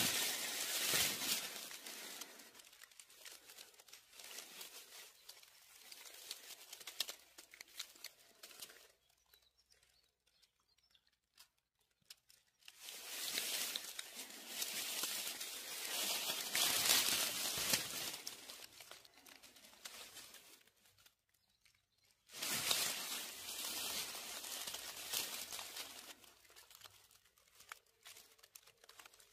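Dry fallen leaves and pine needles rustling and crackling as they are disturbed, in three long stretches with a quiet spell of a few seconds about a third of the way in.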